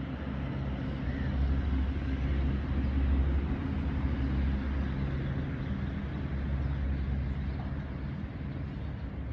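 An engine running steadily, a low even hum, with a faint short bird chirp about a second in.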